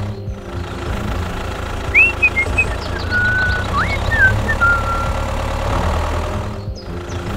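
A low engine idling steadily with a knocking rumble, joined in the middle by a few short chirping whistles that rise and fall. The sound dips briefly twice, near the start and near the end.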